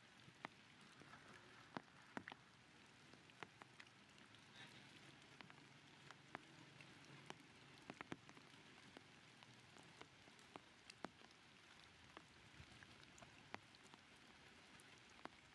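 Faint water drops falling after rain: scattered sharp drips at irregular intervals over a soft, steady hiss.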